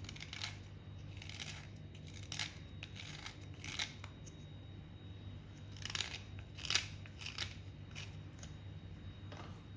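A metal blade scraping the soft outer layer off a wet piece of white clay in short, irregular strokes, about ten scrapes, a few sharper than the rest.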